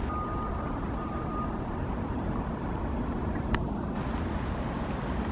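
Steady low outdoor rumble, with a short faint high tone in the first second or so and a single sharp click about three and a half seconds in.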